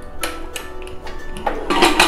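Background music with steady held notes, over two metal clicks from a pressure cooker lid being twisted open and lifted, one shortly after the start and a louder one near the end.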